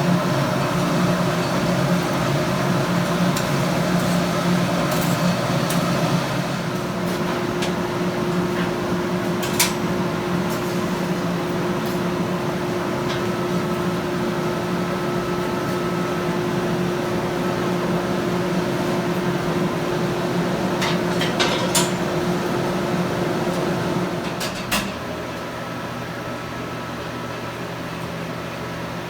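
Electric blower of a coke forge running with a steady hum as it feeds air to the fire, with a few faint metallic clinks. About 24 s in the hum drops lower and one of its tones stops.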